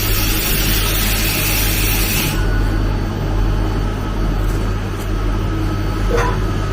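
CNC milling machine running a program, its cutter machining a copper part on the back-side face and chamfer pass, with a steady low hum under a hissing cutting noise. The high hiss drops away about two seconds in.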